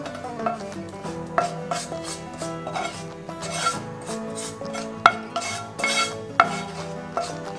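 Wooden spatula scraping sauce out of a frying pan, with a few sharp taps against the pan, over background music.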